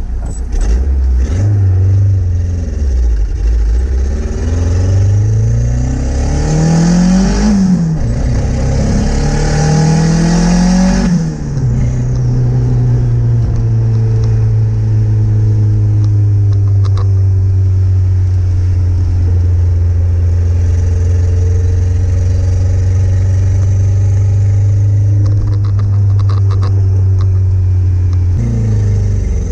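Turbocharged Honda D16Z6 engine heard from inside the Del Sol's cabin, revving up hard through two gears with a shift between, then lifting off about eleven seconds in. It then runs at steady revs until a change near the end.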